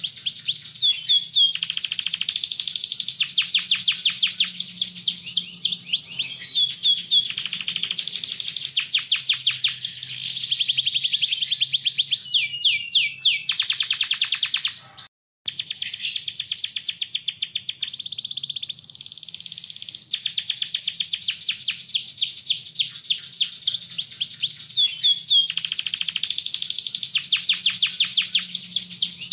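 Domestic canary singing a long, unbroken song of fast trills and rolls, phrase after phrase of rapidly repeated high notes, with a brief half-second break about halfway through.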